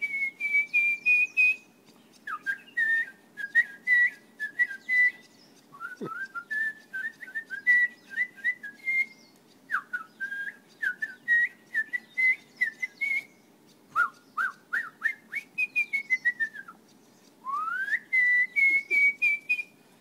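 A man whistling an impression of a Heuglin's robin (white-browed robin-chat) song: about six phrases, each a run of short notes climbing step by step in pitch. The first and last phrases open with a long upward slide.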